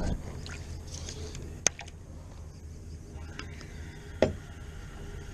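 Two short, sharp clicks about two and a half seconds apart over a steady low rumble.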